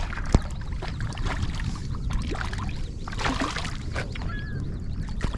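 Water sloshing with wind rumbling on the microphone, broken by scattered short clicks and splashes.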